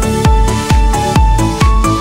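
Background electronic dance music with a steady kick drum, about two beats a second, under held synthesizer notes.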